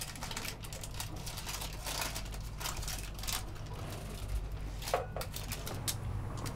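Baking parchment crinkling and crackling in quick, irregular bursts as it is peeled off a baked cake, with a sharper snap about five seconds in. A steady low hum runs underneath.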